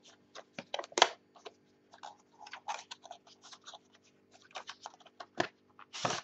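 Small white cardboard stylus box being opened by hand, its sleeve pulled apart and inner tray slid out. The sound is an irregular run of cardboard scrapes, taps and clicks, with sharper knocks about a second in and near the end.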